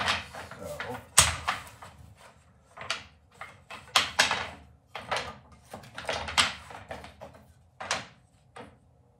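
Wooden boards knocking and clattering against each other and on a table saw's top as they are picked up, shuffled and set down: about a dozen uneven knocks.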